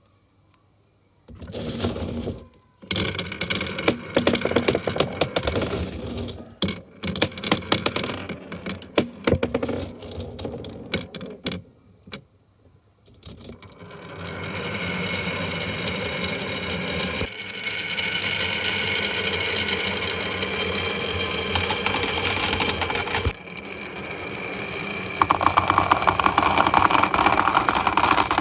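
Marbles clattering and rolling along a marble run's tracks: a dense run of clicks and knocks at first, then a long steady rolling sound, and a fast rattle of clicks near the end.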